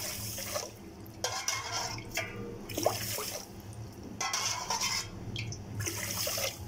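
Water poured from a glass into a steel saucepan of sugar, splashing in several short pours with brief pauses between them.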